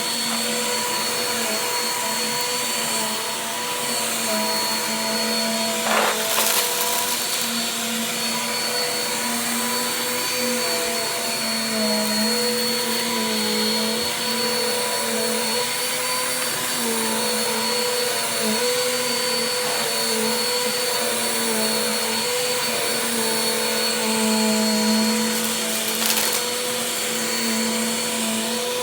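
Vacuum cleaner running steadily with a high whine, its pitch wavering slightly as it is worked. Brief clicks or knocks sound about six seconds in and again near the end.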